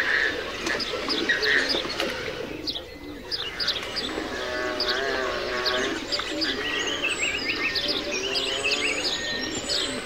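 A chorus of birds calling: many short, high chirps and tweets throughout. From about four seconds in, lower warbling, cooing calls join them.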